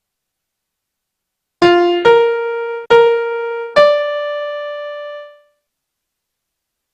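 Piano tone playing the last four notes of the alto line: a short note, two longer notes on one higher pitch, then a final note higher still that is held and fades out.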